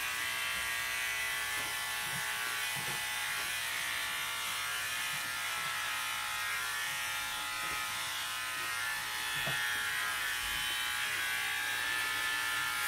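Steady buzzing of a small electric motor, with a few soft, low knocks.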